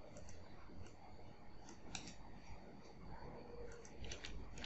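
Faint, scattered clicks of a computer mouse as vertices are selected and merged through a right-click menu, over a low steady room hum.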